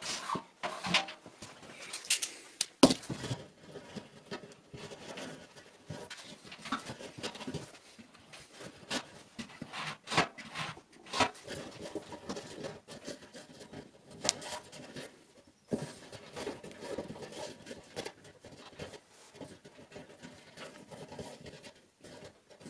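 Handling noises as a cord is threaded through eyelets and tied to the lid lever of a metal trash can: irregular small clicks, taps and rustling, with one sharper knock about three seconds in.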